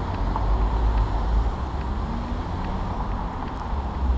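Street traffic noise with a steady low rumble.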